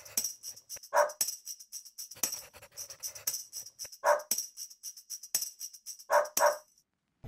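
Upbeat background music with a steady tambourine beat, with four short dog barks over it: one about a second in, one at about four seconds and two in quick succession near the end. The music cuts off just before the end.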